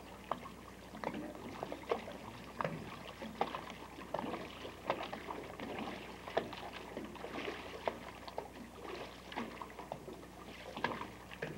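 Lake water lapping and splashing irregularly, a few short slaps a second, over a low steady hum.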